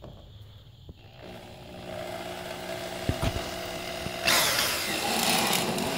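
Corded electric drill with a 3/32-inch bit starting up about a second in and running steady. About four seconds in it gets louder and harsher as the bit bores into the laminate flooring.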